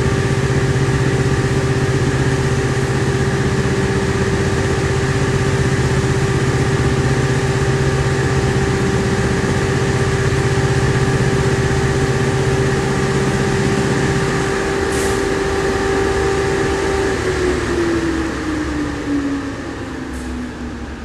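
Automatic rug-beating machine running loudly, beating a rug at about 40,000 beats per minute to shake out dust and grit, with a steady motor whine. About three-quarters of the way through it is switched off: a low hum drops out and the motor's whine falls steadily in pitch as it winds down.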